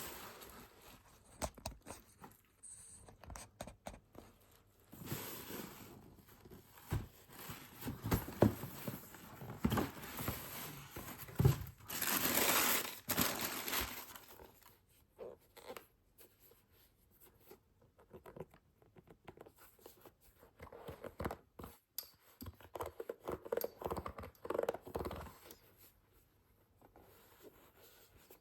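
Unboxing of a pair of football boots: paper packaging and a box being handled, with crinkling, tearing and scraping broken by small knocks. The loudest part is a long rustle of paper about twelve seconds in.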